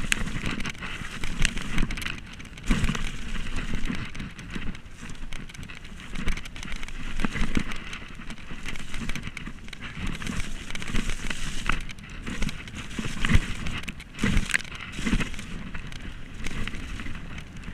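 Downhill mountain bike ridden fast down a rough dirt trail: a continuous rattle and crunch of tyres and bike over the ground, with irregular sharp knocks as it hits bumps.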